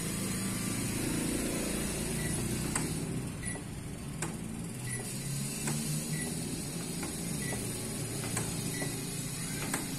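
Juki DDL-9000B industrial sewing machine standing powered but not sewing: a steady low hum with a few light clicks and short faint high beeps about every second and a bit, as the machine stays locked by a program error and will not run.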